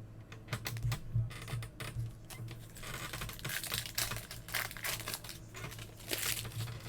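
Trading card packs and cards being handled: a wrapper crinkling and cards rustling and clicking, busiest in the second half, over a steady low hum.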